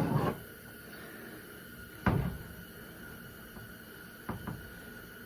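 Parts of a mower-deck gear drive box being handled as it is opened up: one sharp knock about two seconds in and two light clicks near the end, over a faint steady hum.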